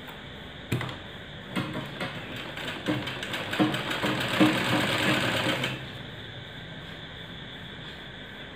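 Sewing machine stitching fabric: a click a little under a second in, then a run of rapid stitching ticks that grows louder and stops abruptly a little under three seconds before the end.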